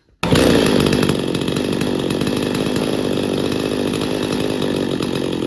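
Two-stroke chainsaw engine idling steadily at about 3,000 RPM while its low-speed jet screw is turned during carburettor tuning, searching for the setting where the engine starts to die. The sound cuts in abruptly just after the start.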